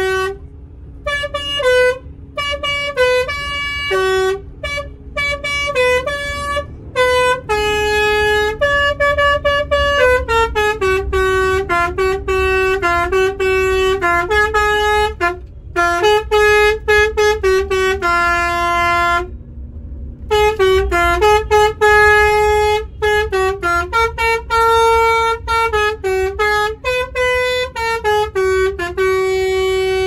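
A 'telolet basuri' musical bus horn playing a fast tune of short stepped notes, breaking off briefly a few times, over a steady low rumble.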